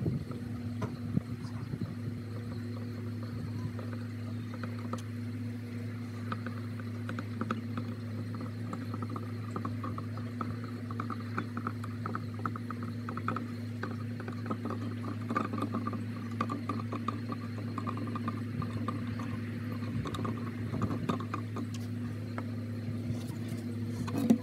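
Steady low mechanical hum, with faint light clicking through the middle stretch.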